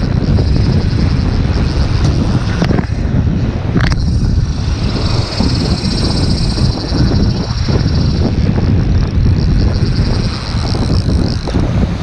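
Strong wind buffeting the microphone, a loud steady low rumble.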